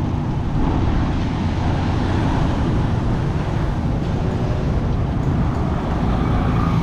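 Steady road traffic and vehicle noise with a heavy, continuous low rumble.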